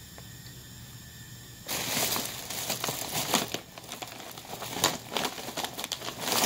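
Thin clear plastic carrier bag rustling and crinkling as a hand rummages inside it. The rustling starts about two seconds in and comes in uneven crackly spurts.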